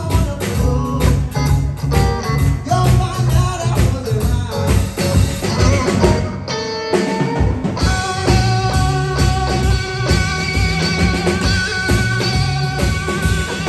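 A rock band plays live: electric guitar, bass guitar and drum kit, loud and steady. The band breaks off briefly about six seconds in. It comes back with a lead electric guitar on a Fender holding long, slightly wavering notes over the bass and drums.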